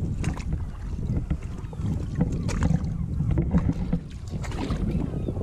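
Wind rumbling on the microphone, with irregular splashes of shallow seawater as someone wades through it.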